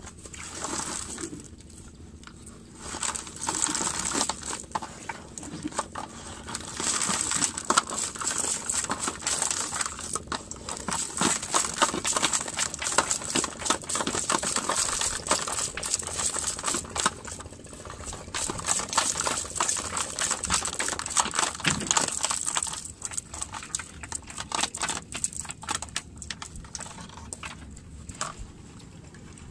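Red mesh fishing net, wet and holding a shrimp catch, rustling and crackling as hands shake and work it, with dense rapid clicks. It goes quieter near the end.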